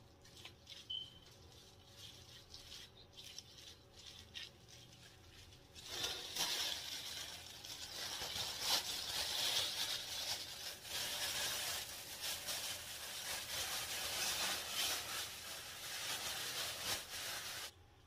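Faint clicks and rubbing of hands working through treated hair, then from about six seconds in a plastic bag crinkling loudly as it is handled over the head. The crinkling cuts off suddenly just before the end.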